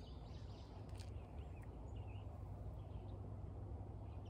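Quiet outdoor background with a steady low rumble, a few faint bird chirps, and a couple of soft clicks as an arrow is nocked on a longbow string and drawn.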